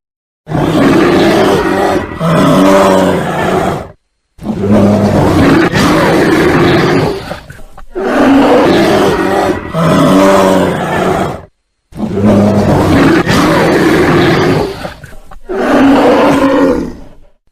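Bear roaring in a string of long, harsh roars a few seconds each, some cut off into dead silence between them.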